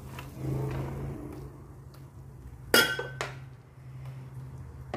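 A ceramic plate clinking against a frying pan as grated potato is tipped in: one sharp, ringing clink a little under three seconds in, then a lighter knock just after.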